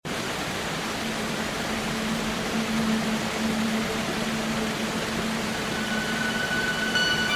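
Steady rushing noise with a faint low hum underneath; soft, high held music notes come in near the end.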